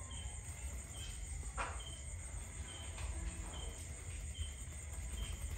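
Dove's wings flapping as it mounts its mate: a sharp rustle about one and a half seconds in and fainter ones later. Behind it, a short high chirp repeats about once a second over a steady low hum.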